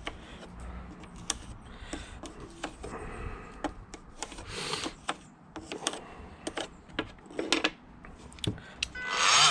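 Pencil scratching in short strokes as it is drawn around a plastic electrical back box laid on plasterboard, with light clicks and knocks from handling the box and board. A louder, hissing burst comes near the end.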